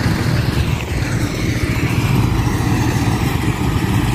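John Deere 5050D tractor's diesel engine running steadily under load, driving a straw reaper.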